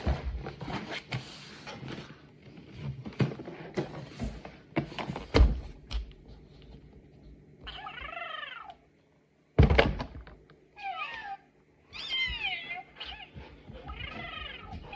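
Knocks and thumps of the hard plastic ride-on suitcase being handled, then a recorded cat meowing about four times from the B. toys Lolo cat suitcase's sound feature. A sharp thump falls between the first two meows.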